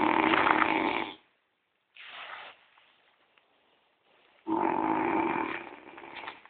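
French bulldog snoring loudly while asleep: two long snores about four seconds apart, with a much softer breath between them.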